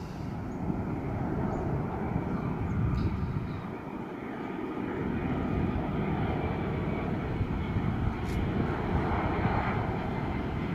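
Airbus A330-300 with Rolls-Royce Trent 700 jet engines on landing approach: a steady low jet rumble.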